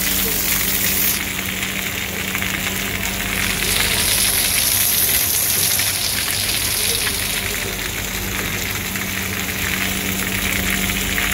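Heavy rain falling on a concrete path, with runoff pouring in streams from a roof edge and splashing onto it: a dense, steady hiss.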